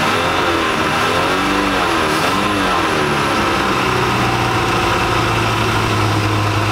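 Mercruiser sterndrive engine being revved with the throttle, its pitch rising and falling several times, then holding a steady speed from about four seconds in.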